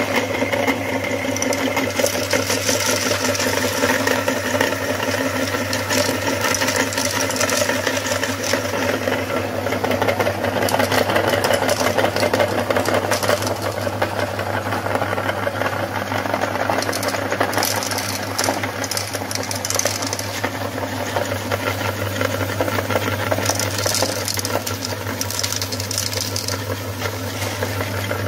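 Electric meat grinder motor running with a steady low hum while it crunches and crackles through peanut M&M candies, crushing them through the cutting plate.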